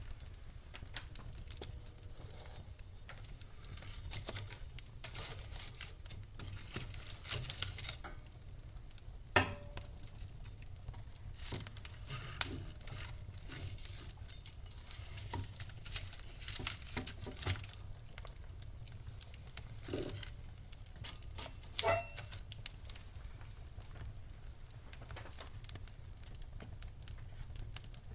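Wood fire in a fireplace crackling, with frequent small pops and a few louder snaps, the sharpest about a third of the way in, over a low steady rumble.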